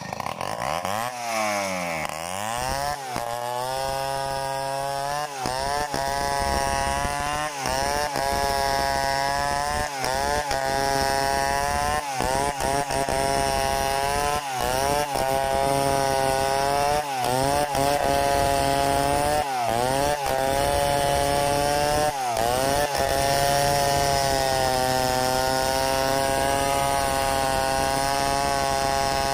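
Stihl 070 two-stroke chainsaw revving up, then ripping a log lengthwise into lumber. Its engine note sags and recovers about every two seconds as the bar loads in the cut, then holds steady under load for the last several seconds.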